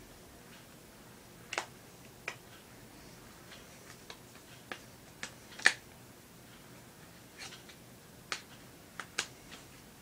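Hard plastic case parts clicking and snapping as they are fitted around an iPod Touch, about ten sharp separate clicks, the loudest a little past halfway.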